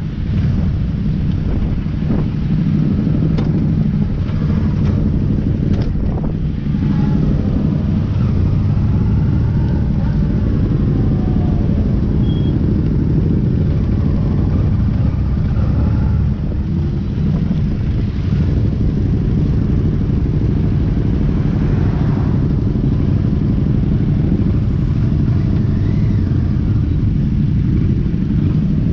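Motorcycles riding in a group at road speed, heard from the saddle: a steady engine and road rumble, with engine notes rising and falling several times as the bikes speed up and ease off.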